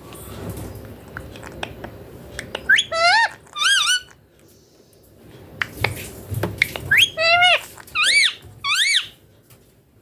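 Indian ringneck parrot calling: five short whistled calls in two bunches, their pitch rising and wavering, among light clicks and knocks.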